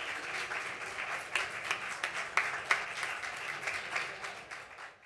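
Small audience applauding with many overlapping hand claps, fading out near the end.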